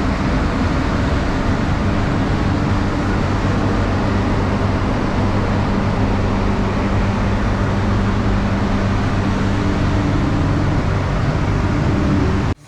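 Paint spray booth fans running: a loud, steady rush of air with a low hum under it. It cuts off abruptly right at the end.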